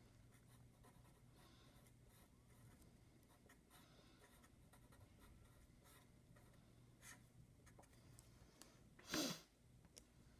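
A marker writing on paper, with faint scratching strokes. About nine seconds in comes a louder, brief rub as a calculator is slid onto the paper.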